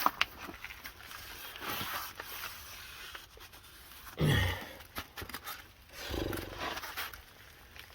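A man's low groans with a falling pitch, about four and six seconds in, among small clicks and rubbing from wiping with a rag.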